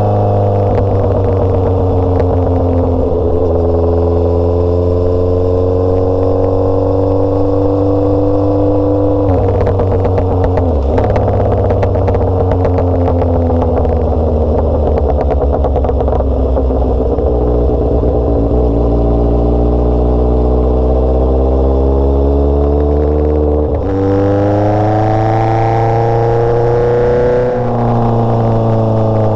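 Motorcycle engine and exhaust running on the move, the engine note drifting slowly up and down with speed. The pitch drops sharply about ten seconds in and climbs again about 24 seconds in.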